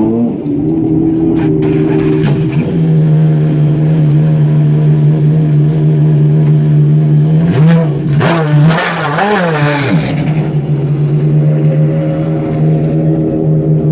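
Maserati MC12's V12 engine idling steadily, its throttle blipped twice about eight and nine seconds in, each rev rising and falling quickly before settling back to idle.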